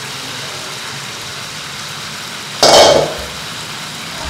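Chicken breasts sizzling steadily in oil in a frying pan. About two and a half seconds in there is one sudden, loud burst lasting about half a second.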